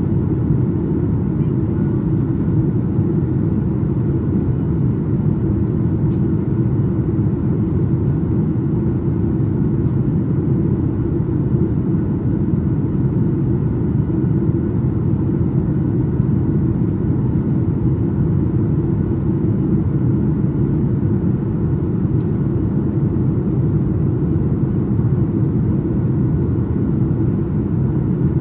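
Steady low rumble of cabin noise inside a Boeing 737-8 MAX airliner on approach, from its CFM LEAP-1B engines and the air rushing past the fuselage.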